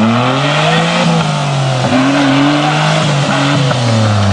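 Off-road vehicle engine revving under load. Its pitch rises and falls repeatedly, dropping sharply a little before two seconds in and again near the end.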